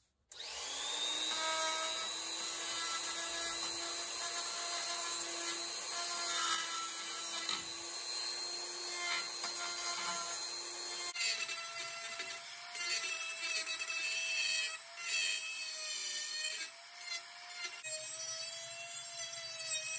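Makita 1/4-inch die grinder with a carbide burr spinning up and grinding into a VW transaxle's magnesium bellhousing, a steady high whine over the scraping of the cut. The whine jumps to a higher pitch about halfway through and shifts again near the end.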